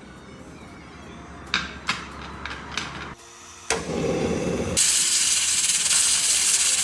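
A few light clicks and knocks, then a short low rumble. About two-thirds of the way in, a loud steady hiss starts: steam venting from a pressure cooker.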